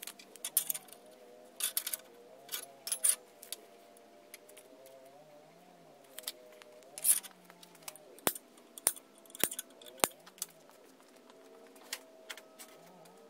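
Steel tape measure being handled over a steel plate on a metal workbench: scattered clicks, rattles and light scrapes of the tape blade and case against the metal, with four sharp clicks between about eight and ten seconds in.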